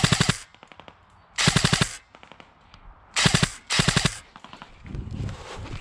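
G&G PCC9 airsoft electric gun firing four short full-auto bursts, two of them close together near the middle. Quick footsteps of someone running begin near the end.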